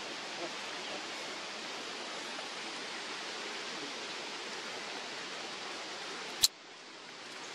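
Steady, even outdoor background hiss with no distinct events, broken by a single sharp click about six and a half seconds in, after which the hiss drops and slowly comes back.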